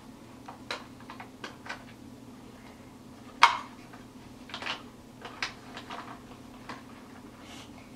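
Scattered light clicks and knocks of plastic as a toy ice cream truck and a small penguin doll are handled and the doll is fitted into the truck. The sharpest click comes about three and a half seconds in.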